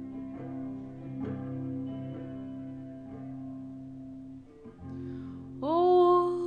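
Guitar chords ringing in an instrumental break, struck about once a second, with a singing voice coming in on a long held note near the end.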